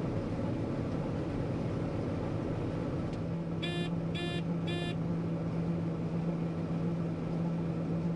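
John Deere 9500 combine running steadily while unloading corn into a grain cart, with a steady low hum coming in about three seconds in. Three short electronic beeps about half a second apart sound near the middle.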